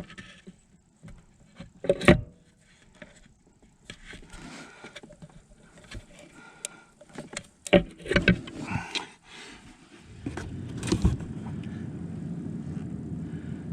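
Metal parts and tools handled on a snowmobile engine: a few sharp knocks and clanks about two seconds in and around eight seconds, with lighter clatter between. From about ten seconds in a steady low rumble sets in and continues.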